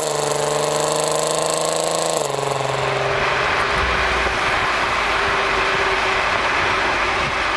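Stock exhaust of a Volkswagen Golf R32's 3.2-litre VR6, recorded at the rear bumper. The pitch drops sharply twice, at the start and about two seconds in, as the car shifts up under acceleration. After that the engine note fades under a steady rushing road and wind noise.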